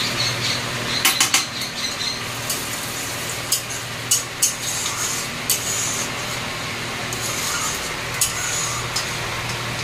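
Whole spices (bay leaves, dry red chilli, garam masala) sizzling in hot mustard oil in an aluminium kadai, with a metal spoon clinking and scraping against the pan several times as they are stirred.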